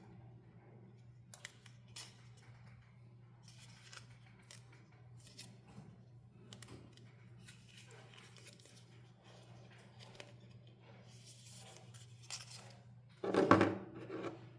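Doll packaging being handled and cut: a scatter of small snips, crinkles and clicks of plastic and cardboard, with one louder knock and rustle near the end.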